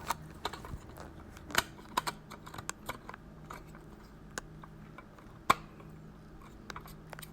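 Scattered small plastic clicks and taps as a new 9-volt battery is fitted to a smoke alarm and snapped onto its clip. The sharpest click comes about five and a half seconds in.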